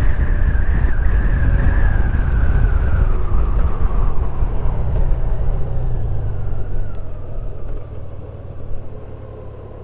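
2018 Honda Goldwing's flat-six engine with wind and road noise as the motorcycle slows down, a whine falling steadily in pitch. The noise drops away about eight seconds in, leaving a quieter steady engine sound as the bike comes to rest.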